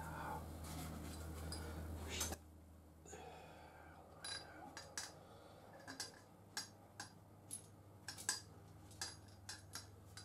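Small metal motorcycle front-fork parts being handled, giving a series of light, scattered clicks and clinks. A steady low hum stops abruptly about two seconds in.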